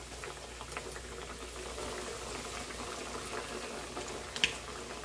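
Breaded chicken breasts shallow-frying in hot oil in a pan: a steady sizzle full of small crackles and spatters, with one louder pop near the end.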